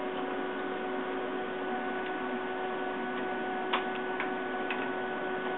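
Diathermy machine's cooling fan running with a steady hum, with a few short clicks about two-thirds of the way in as the drum head's jointed arm is moved into position.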